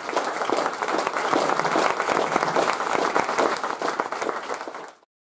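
Audience applauding: many overlapping hand claps in a steady stream, cut off suddenly near the end.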